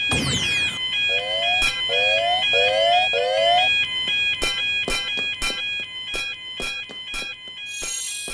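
Level crossing bell ringing steadily in an electronic two-tone alternation, the 'kan-kan' of a railroad crossing signal. A falling swoosh comes right at the start and four short rising chirps follow. From about halfway on there is a run of sharp clicks, roughly three a second.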